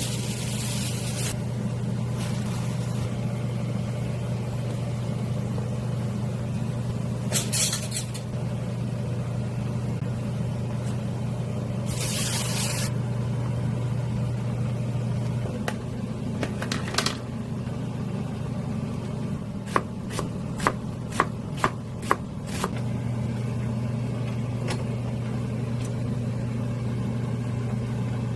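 Knife chopping on a cutting board: about six quick sharp chops about two-thirds of the way through. Earlier come two short hissing bursts, over a steady low hum.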